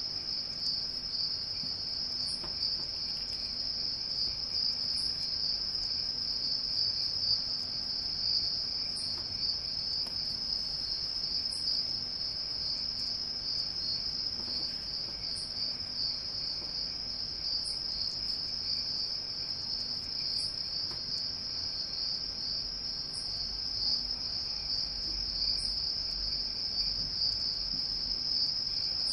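Steady high-pitched chirring of crickets, with no pause, and faint ticks every few seconds.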